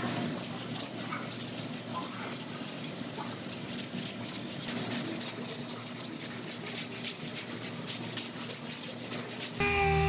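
Sanding block rubbing back and forth over body filler on a car's quarter panel, in even strokes several a second. Near the end a dual-action orbital sander starts running with a steady whine.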